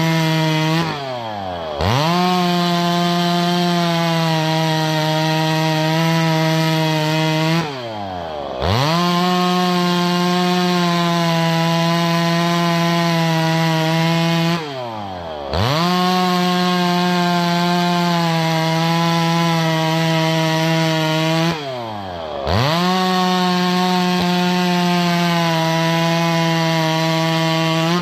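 Two-stroke chainsaw bucking a log into firewood lengths. It is held at full throttle through each cut, then the revs drop toward idle and climb straight back up between cuts, four times, about every seven seconds.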